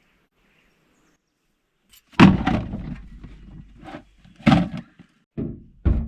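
A loud thump about two seconds in, followed by several more knocks and thuds near the middle and the end.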